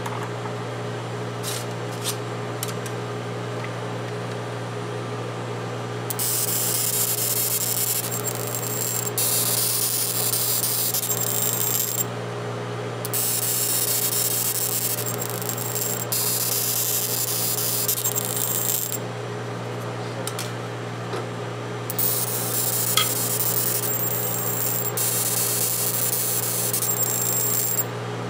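Laser marking machine etching identification and lot codes into rocker arms: three hissing passes of about six seconds each, with a thin high whistle in them, over a steady machine hum.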